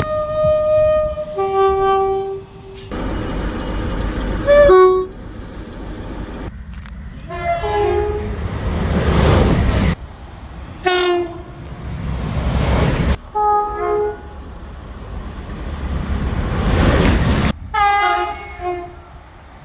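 A series of short train horn recordings cut together, most of them two-tone horns sounding a higher note followed by a lower note for a second or two each, over the rumble of trains on the track. The clips change abruptly every few seconds.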